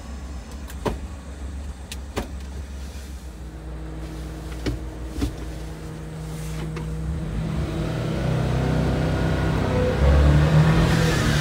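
A Suzuki Carry kei truck's small three-cylinder engine heard from inside the cab, idling with a few light clicks in the first seconds. From about six seconds in, the engine note grows louder and rises as the truck pulls away, loudest near the end.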